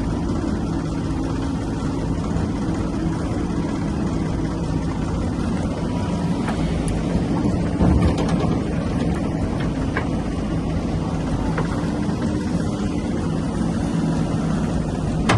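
Heavy diesel engines of a backhoe loader and tractors running steadily at a work site, with a few sharp clanks and a louder thump about eight seconds in.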